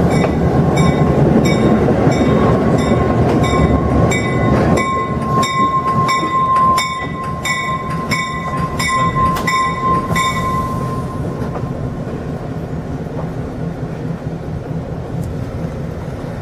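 Diesel locomotive running past close by, its engine and wheel noise loud at first and then fading as it moves away. A bell rings about twice a second over it and stops about ten seconds in.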